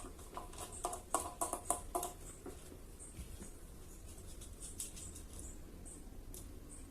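Small clicks and taps of fan parts and tools being handled during the repair of a fan motor, closely spaced in the first two seconds, then sparse and faint.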